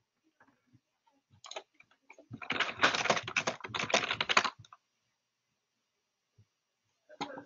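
Computer keyboard typing: a couple of keystrokes about a second and a half in, then a quick run of keystrokes lasting about two seconds, and a single key press near the end.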